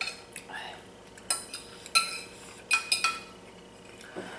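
Eating utensils clinking and scraping against a bowl of noodles: several sharp clinks with a short ring, bunched in the middle.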